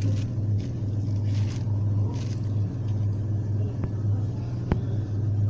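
Two sharp little clicks, about four and about four and three-quarter seconds in, as fingers work the spring locks on a car fan motor's carbon brush holder, with light handling noise. A steady low hum runs underneath.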